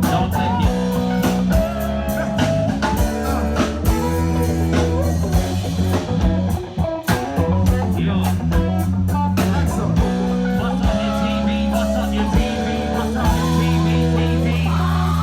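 Live band playing an instrumental passage in a blues-rock style: guitar lines over held bass notes and regular drum hits, with a short dip about seven seconds in.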